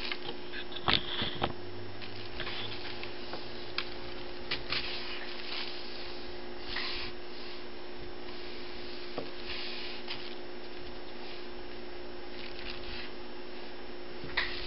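Paper rustling and scratching as a kitten paws and rolls on sheets of paper under a teasing hand, in short scrapes with a couple of sharper taps about a second in. A steady low electrical hum runs underneath.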